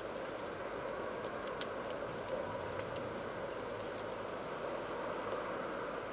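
Steady outdoor noise hiss with a few faint, light ticks scattered through it.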